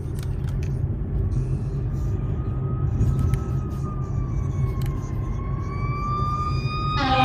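A siren wailing slowly up and down over a loud, steady rumble, joined near the end by a louder, harsher pitched tone.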